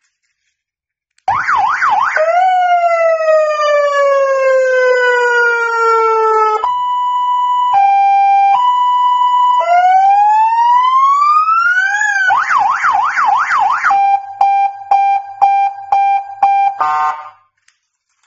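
12V electronic police siren cycling through its tones, starting about a second in: a fast yelp, a long falling wail, a slow two-tone hi-lo, a rising wail, the fast yelp again, then a steady tone chopped into quick pulses, cutting off about a second before the end.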